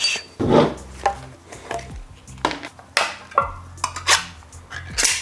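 Metal tools and parts clinking and clattering as they are handled and set down: a string of irregular light knocks and clinks.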